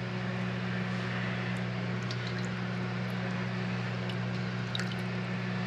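Steady hum of a food dehydrator's fan and motor running, an even low drone under a soft airy whir, with a few faint light taps as apricot halves are set on the wire drying rack.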